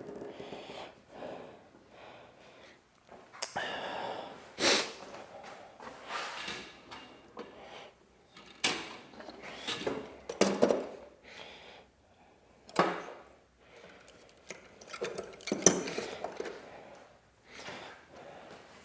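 Irregular knocks, clacks and short scrapes of boards and tools being handled on a workbench, with a few sharper clacks spread through.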